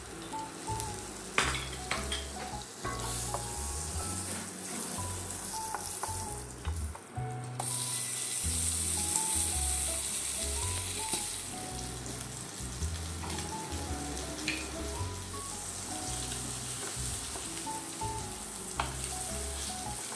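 Butter sizzling quietly in a hot stainless steel frying pan, with a few sharp pops in the first three seconds. About seven and a half seconds in, a frozen beef burger patty goes into the fat and the frying turns suddenly louder and hissier, then keeps up a steady sizzle.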